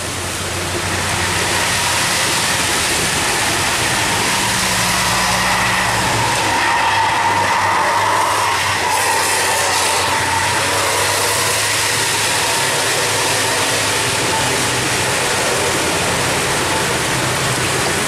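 Heavy rain hissing steadily with wet-road traffic, as a tour bus's engine hums low and drives past; a faint whine swells and fades around the middle.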